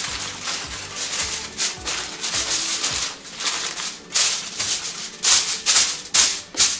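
Aluminium foil crinkling and crackling as it is pressed and folded by hand around a stove top, in a dense run of rustles with several loud sharp crackles in the last three seconds. Soft background music plays underneath.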